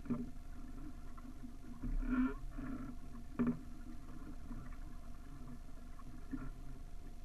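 A small sailing dinghy under way: water slapping against the hull, with a few sharp knocks from the boat and a steady faint hum underneath.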